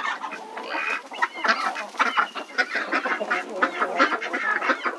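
A backyard flock of chickens and ducks calling, many short calls in quick succession, overlapping one another.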